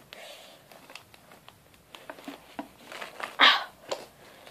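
Rummaging in a bag by hand: soft rustles and light clicks of the things inside being moved about, with one louder brief rustle about three and a half seconds in.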